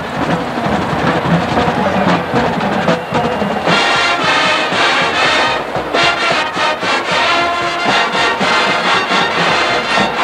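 Marching band playing: a dense low passage with drums gives way, about a third of the way in, to the full brass section with sharp accented hits over the percussion.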